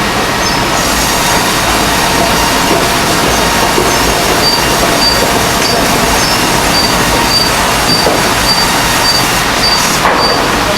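Double-cut bandsaw mill sawing a red oak log: a loud, steady rush of blade and machinery noise with a faint squeal. A short high beep repeats about twice a second from the middle on.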